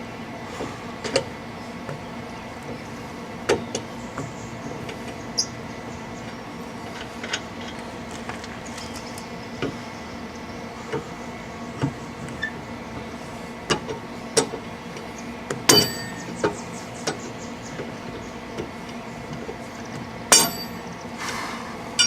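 Four-way lug wrench spinning lug nuts off a car wheel, with scattered metallic clicks and clinks as the wrench and loosened nuts are handled. Two louder ringing clanks come late, one about 16 seconds in and one about 20 seconds in, over a steady hum.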